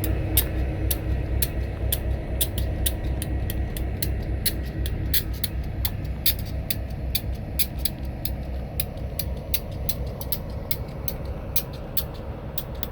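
Idling EMD GP-series diesel locomotives: a steady, low, pulsing engine throb, with a rapid, irregular crackle of sharp clicks over it.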